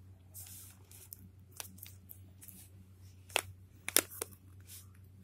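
Pen writing on notebook paper in a few short scratchy strokes, with a couple of sharp clicks from the notebook being handled, over a steady low hum.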